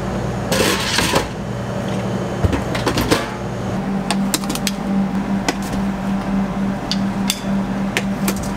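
Stainless-steel gelato pans and spatulas clattering and clicking as trays are set into a display case, with a scraping rush about half a second in and scattered sharp metal clicks, over a steady machine hum.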